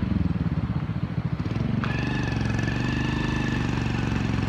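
Motorcycle engine running steadily at low revs. A thin, high steady whine joins in suddenly about two seconds in and fades after a second or so.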